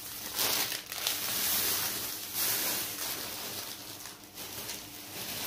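Clear plastic packet of fabric flower petals crinkling as it is handled and lifted away: a dense rustle, loudest in the first half and fading toward the end.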